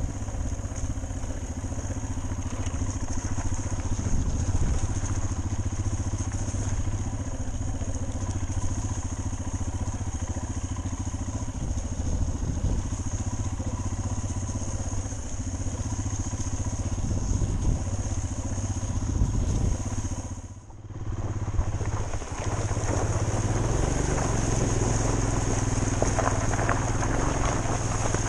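Motorcycle engine running steadily under way, heard from a camera mounted on the moving bike. About three-quarters of the way through, the sound dips away for a moment, then the engine carries on with a steadier, lower note.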